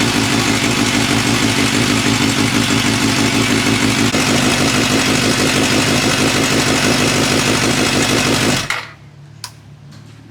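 2005 Suzuki GSX-R750 inline-four engine idling steadily while warming its oil, then switched off about eight and a half seconds in, followed by a single click.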